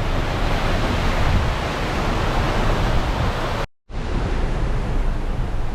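Strong wind of over 30 knots rushing over a sailing catamaran, mixed with wind-driven rain and spray blowing across the water, a loud steady rush. It cuts out for a split second just under four seconds in.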